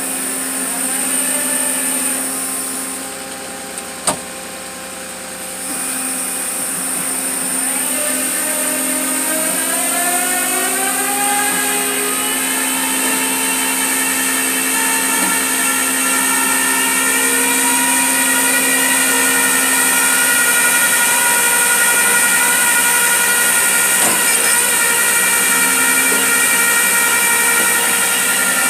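Flatbed tow truck's winch running as it pulls a car up the tilted bed: a machine whine that rises in pitch over several seconds, then holds steady under load. A sharp click sounds about four seconds in.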